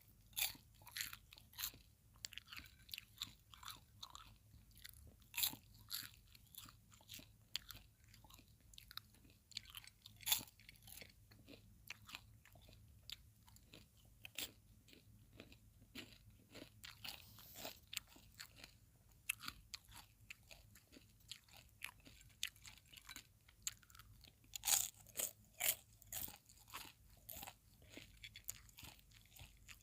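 Close-up popcorn chewing: irregular crisp crunches, some in quick clusters, with a faint low hum underneath.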